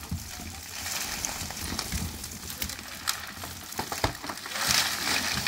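Dry reed stalks rustling and crackling as a large bundle of reeds is pulled across wooden roof poles, with scattered clicks and a single knock about four seconds in. The rustling grows louder near the end.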